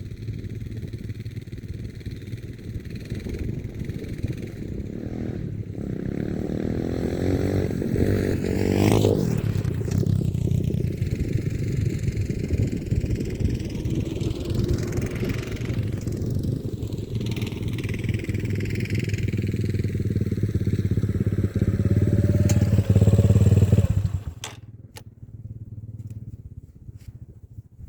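Small off-road vehicle engine running and revving as it rides past, its tone sweeping up and down. The engine sound drops away suddenly about 24 seconds in, leaving a few faint clicks.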